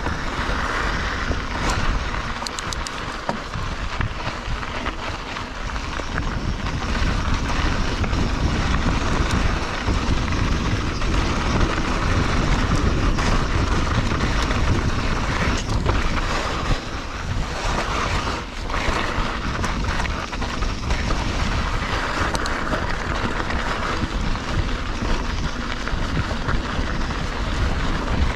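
Mountain bike riding down a dirt trail: tyres rolling over dirt and gravel with wind rushing over the microphone, and scattered knocks and rattles from the bike over bumps.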